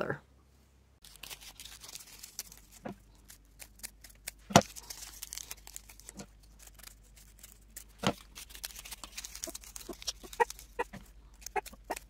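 Pleated paper cupcake liners crinkling and rustling as they are folded and handled, with scattered sharp clicks and crackles, the loudest about four and a half and eight seconds in.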